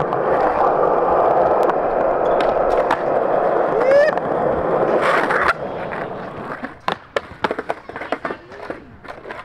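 Skateboard wheels rolling on smooth concrete, a steady rumble. About five and a half seconds in the rolling stops, and a string of sharp clacks follows as the board leaves the rider's feet and strikes the ground.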